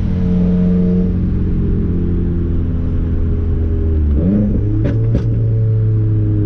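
Straight-piped Subaru WRX turbocharged flat-four running steadily while cruising, heard from inside the cabin. About four seconds in the engine note changes, and two sharp clicks follow.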